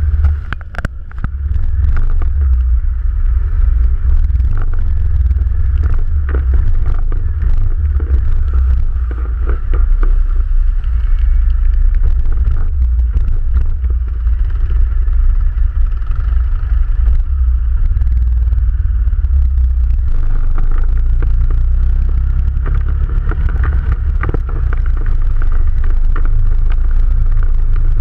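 ATV engine running steadily while riding a rough forest track, with frequent knocks and rattles from the bumps.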